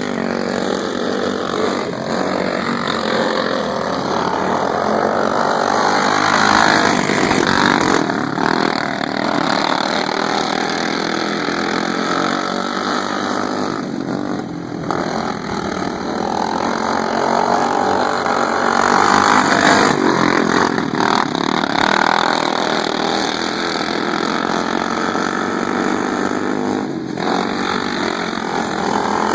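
Small engines of racing lawn mowers running at speed, growing louder and softer every several seconds as they go round the track.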